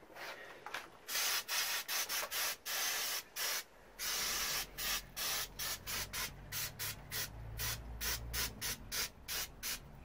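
Hand rubbing strokes cleaning around the magneto spindle of a British Seagull Forty Plus outboard, with the coil removed. Short scrubbing strokes, a few longer ones in the first half, then a quicker run of about two to three a second.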